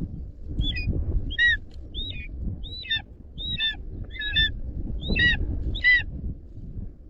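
Eagle calling: a series of about eight short, high, downward-arching calls, repeated every half second or so, over a low rumble.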